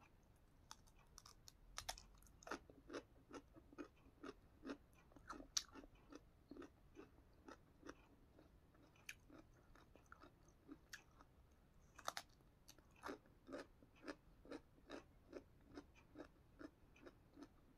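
Carrot slices being bitten and chewed: a run of crisp crunches, about two to three a second, with a louder bite about twelve seconds in.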